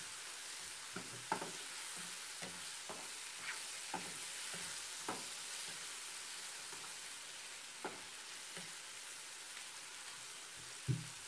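Onions, ground spices and tomato frying in oil in a nonstick wok: a steady sizzle while the masala is sautéed, with short scrapes and taps of a spatula against the pan every second or so and a louder knock near the end.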